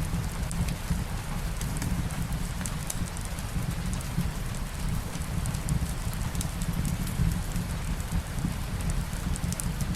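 Steady soft rain with a low rumble underneath, mixed with a fireplace's scattered small crackles.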